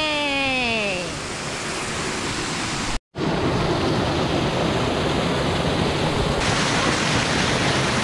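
Small waterfall pouring over rocks into a pool, a steady rush of water. It breaks off for an instant about three seconds in, and from about six seconds in it turns louder and hissier, right under the falling water.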